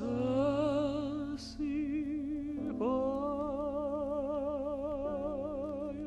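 Tenor voice singing a Russian romance with wide vibrato over piano accompaniment. After a short phrase, a long held note begins about two and a half seconds in.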